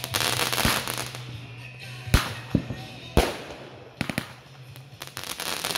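Aerial fireworks going off: a hissing, crackling shot as one rises, then sharp bangs about two, three and four seconds in, and a spell of crackling near the end.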